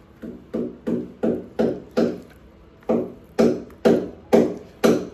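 A hammer striking a fixing into a wall: about eleven blows, each ringing briefly, in a run of six, a short pause, then five more. The last blows are the loudest.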